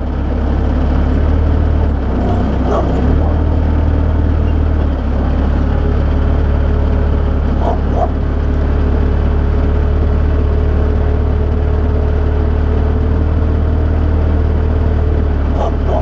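Bobcat skid steer engine running steadily under load, a deep drone throughout. A steady higher whine joins about five seconds in and fades near the end, with a few short sharp sounds over the top.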